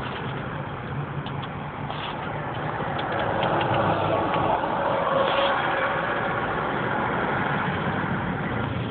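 Road traffic and engine noise heard from inside a slow-moving car, a steady low rumble that swells louder for a few seconds around the middle, with a few faint clicks.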